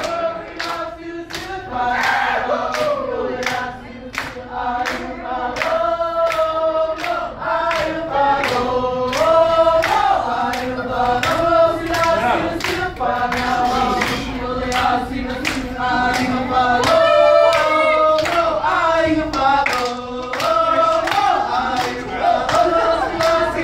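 A Samoan song sung by a group of voices in unison, over a steady sharp beat.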